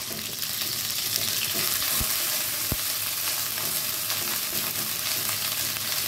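Southern Thai curry paste sizzling in hot oil in a non-stick wok, stirred and scraped with a wooden spatula as it is fried until fragrant. Steady sizzle, with two soft low thumps about two seconds in.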